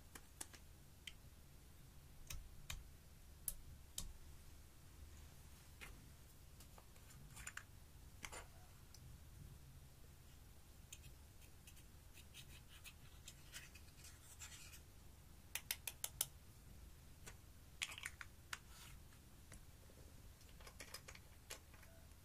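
Scattered small clicks, taps and short scratchy scrapes as plastic eyeshadow compacts and glitter jars are handled and powder is scraped into a glass dish. There is a quick run of four clicks about two-thirds of the way in.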